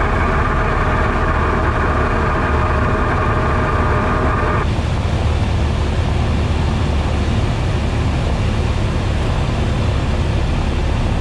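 Cessna 172S's four-cylinder Lycoming engine and propeller droning steadily, heard inside the cabin. A steady higher-pitched tone sits over the drone and cuts off suddenly about four and a half seconds in.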